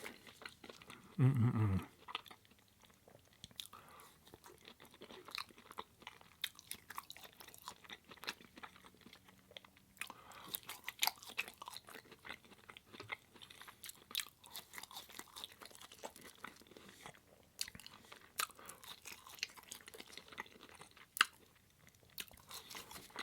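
A person chewing food close to the microphone: soft crunches and wet mouth clicks, irregular and continuous. A brief low voiced hum comes about a second in.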